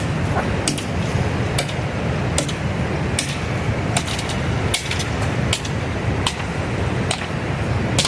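Footsteps knocking on the boards of a plank bridge, about one step every 0.8 s, over the steady rush of river rapids.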